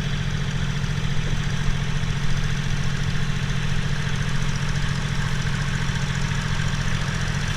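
John Deere 3039R compact tractor's three-cylinder diesel engine running steadily.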